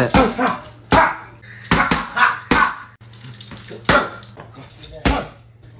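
Boxing gloves smacking into focus mitts during pad work: about half a dozen sharp slaps at uneven spacing, with short vocal sounds between some of the punches.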